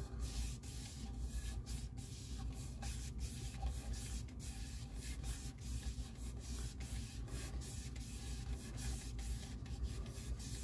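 Cloth rubbing along the outer rim of a turntable platter as it is turned by hand, cleaning the belt path: a quiet, steady rubbing with soft irregular scuffs.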